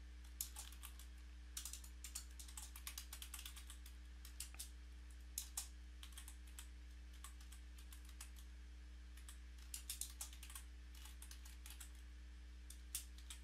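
Computer keyboard being typed on in short irregular bursts of keystrokes with pauses between them, faint, over a steady low electrical hum.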